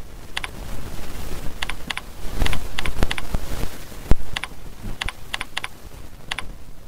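Computer keyboard being typed on in short, irregular runs of key clicks, with one louder, deeper knock about four seconds in.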